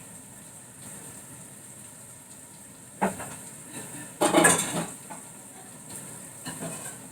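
Pots and utensils clattering as a pot is set up on the stove. There are two main clatters, about three and four and a half seconds in, and a lighter knock later, over a steady low background hiss.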